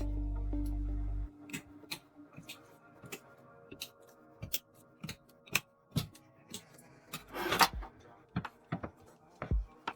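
Computer parts being handled and fitted during a PC build: scattered sharp clicks and taps, with a brief rustling scrape about seven seconds in. Background music with a low steady drone cuts out just over a second in.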